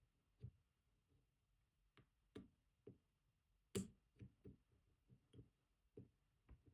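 Faint, irregular clicking of a disc-detainer pick turning the discs inside an Abloy Classic lock core, about ten small ticks with one sharper click a little before the middle.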